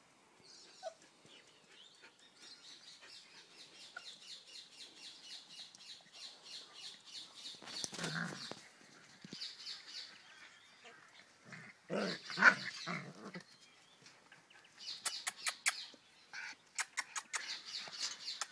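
Siberian husky puppies playing and wrestling over a toy, with short puppy vocalizations around eight seconds in and again around twelve seconds in, the loudest there. From about fifteen seconds in there is a run of sharp clicks.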